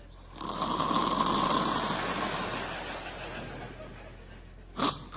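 Stand-up comedy audience laughing: a crowd's laughter swells about half a second in and slowly dies down. There is a short sharp knock near the end.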